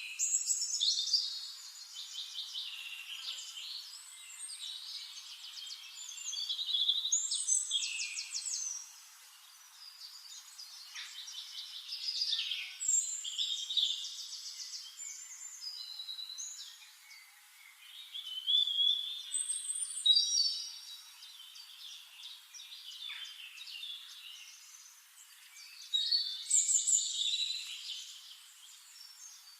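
A songbird singing loud, varied, rapid phrases about every six seconds, with softer twittering between them.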